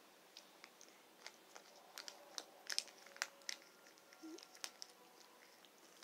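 Faint mouth and wrapper noises of eating sour candy from plastic tubes: scattered sharp lip smacks and clicks with a little plastic crinkling, busiest around the middle.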